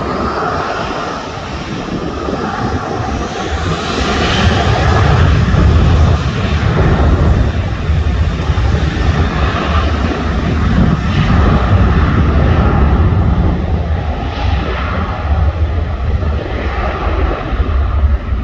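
Jet airliner's engines passing by, a broad rushing noise with a deep rumble that grows louder about four seconds in and stays loud.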